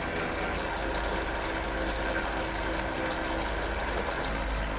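A catamaran's engines running steadily, an even low hum with a few faint steady tones.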